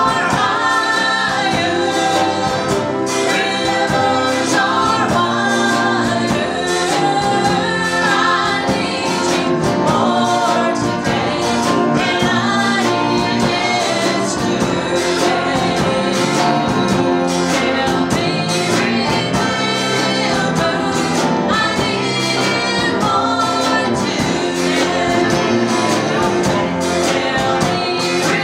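Live gospel song: several voices singing together into microphones over a band backing.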